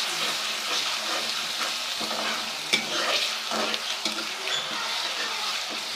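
Onions and ginger-garlic paste sizzling in hot ghee in a pan while being stirred and sautéed, with scrapes and knocks of the stirring utensil against the pan and one sharper knock near the middle.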